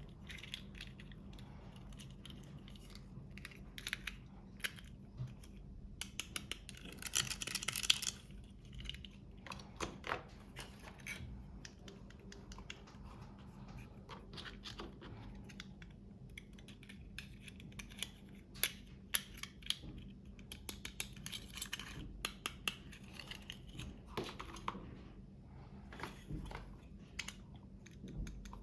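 Toy packaging and small plastic pieces being handled: scattered clicks, taps and scratching, with a louder stretch of crinkling or tearing about seven seconds in.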